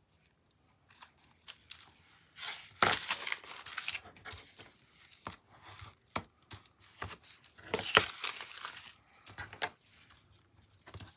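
Paper rustling and crinkling with small taps and clicks as glued die-cut metallic paper pieces are handled, lined up and pressed down on the work surface. There are two louder rustles, about three seconds in and near eight seconds.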